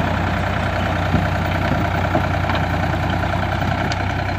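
Ford 3600 tractor's diesel engine running steadily.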